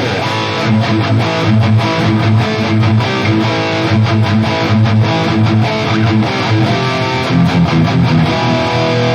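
Distorted electric guitar through a modeled Peavey 6505 high-gain amp preset on a budget multi-effects modeling unit, playing a fast picked riff. A chord rings out near the end.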